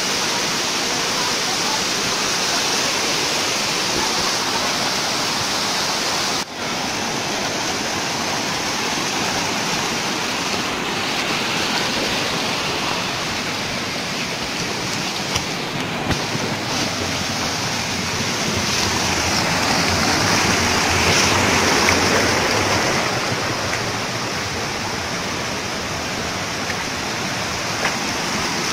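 Water rushing steadily over the shallow limestone cascades of a waterfall and its stream, briefly cutting out about six seconds in and swelling a little louder around twenty seconds in.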